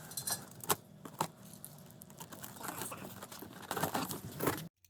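Crinkling and rustling from packaging being handled, with a few sharp clicks and knocks. The sound cuts off abruptly near the end.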